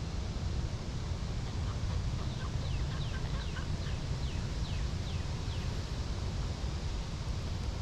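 A bird singing a quick run of about ten down-slurred whistled notes, roughly three a second, over a steady low rumble.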